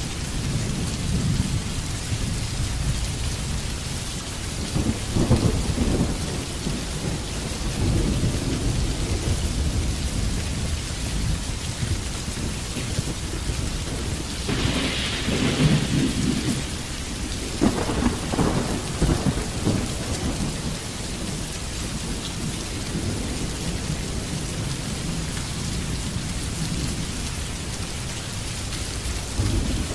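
Steady rain falling, over a low rumble that swells louder a few times: about five seconds in, and again around fifteen and eighteen seconds in.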